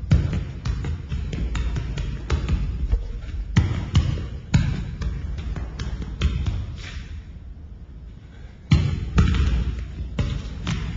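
An irregular run of thuds and knocks over a steady low rumble, quieter for a moment before a sudden loud thud about nine seconds in.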